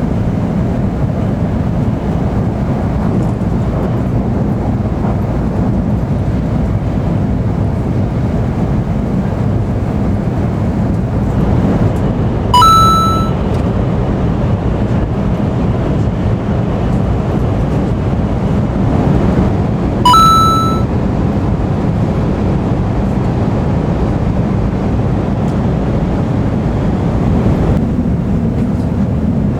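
Steady running noise inside an N700-series Shinkansen car travelling at speed, a continuous low rumble. Two short electronic beeps sound over it, about twelve and twenty seconds in.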